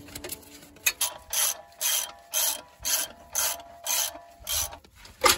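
Ratchet buckle of a ratchet strap on a transmission jack being worked by hand: about eight ratcheting strokes roughly half a second apart, then a sharp click near the end.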